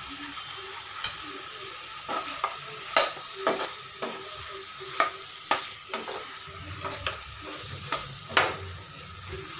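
Spatula stirring fried potato chunks into a sizzling masala in a nonstick kadai: irregular scrapes and knocks of the spatula against the pan, about two a second from about a second in, over a steady sizzle.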